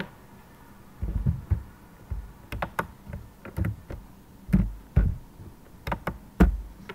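Computer keyboard being typed on: about a dozen irregular keystrokes with dull thuds, starting about a second in. A single sharp click comes right at the start.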